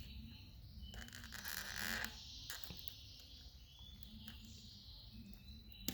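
Faint handling noise of a smartwatch's cardboard box being opened: a rustling scrape for about a second, about a second in, and a few light clicks.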